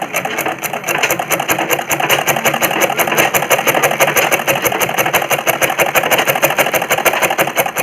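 Sewing machine running steadily, stitching a hem in a fast, even rhythm of needle strokes; it stops near the end.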